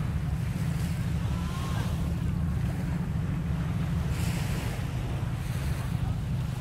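Wind buffeting the microphone: a steady low rumble with a brief burst of higher hiss about four seconds in.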